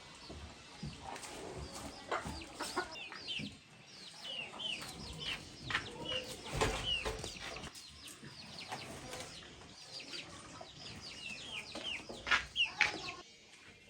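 Chickens calling: many short, high cheeps that fall in pitch, with a few louder calls near the end.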